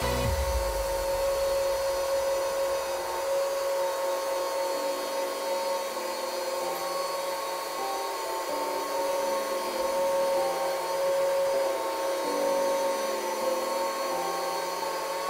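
Electric rotary polisher with an extra-coarse abrasive disc, running steadily against car window glass to grind down a deep scratch; a continuous motor whine.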